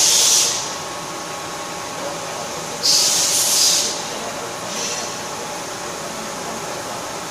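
Amada LC 2415 Alpha III CO2 laser cutting machine running with a steady hum, broken by loud hissing blasts from the cutting head: a short one at the start, one of about a second a little before the middle, and a fainter one shortly after.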